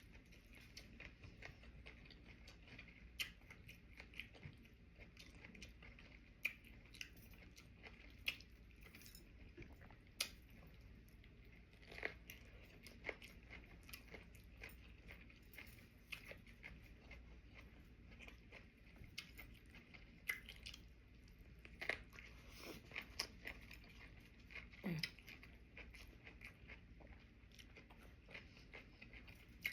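Faint close-up chewing and biting of sushi: small irregular mouth clicks and crunches throughout, over a low steady hum, with a brief low 'mm' hum about 25 seconds in.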